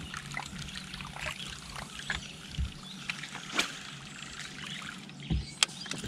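Quiet water lapping against a bass boat's hull, with scattered small clicks and ticks and a low steady hum underneath.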